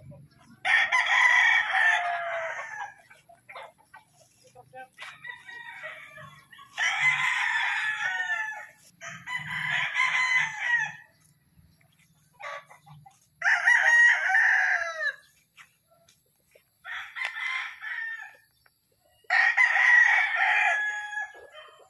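Gamefowl roosters crowing in turn, about six or seven loud crows each lasting a second or two, with short gaps between them.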